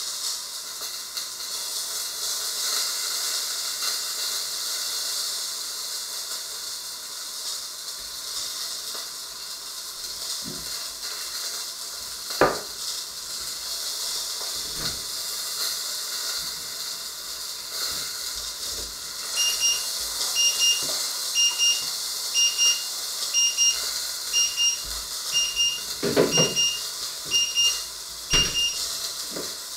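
Steady hiss of food sizzling in a lidded frying pan on the stove, with a sharp knock about a third of the way in and a few softer knocks later. In the second half an electronic beeper sounds a quick, even run of short beeps for about nine seconds.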